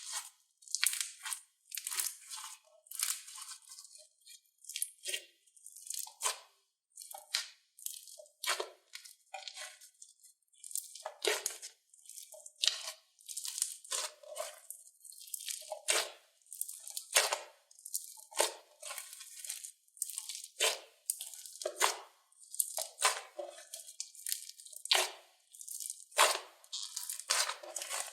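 Slime being squeezed and pressed by hand, giving crunchy, crackling bursts that repeat about once or twice a second.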